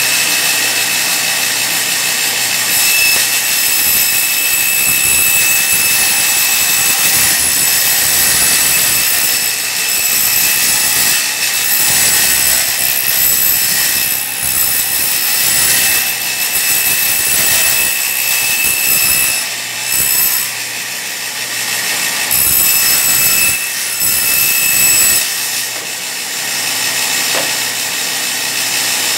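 Bench-mounted circular saw (a table saw with a fixed-height blade) running steadily and ripping thin wooden strips, with a high whine while it cuts and a brief lull about two-thirds of the way through.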